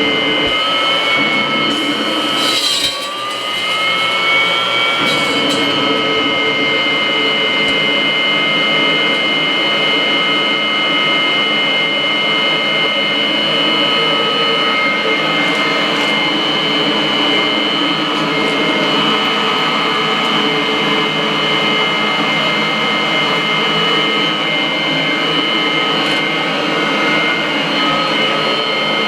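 Kirby upright vacuum cleaner running with its hose attached: a loud, steady motor-and-fan whine. About three seconds in, the pitch and loudness sag briefly as the motor comes under load, then climb back within a couple of seconds and hold steady.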